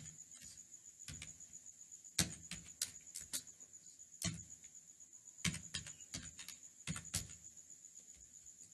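Keystrokes on a computer keyboard as a word is typed letter by letter: irregular single clicks and quick runs of several. A faint steady high-pitched whine sits underneath.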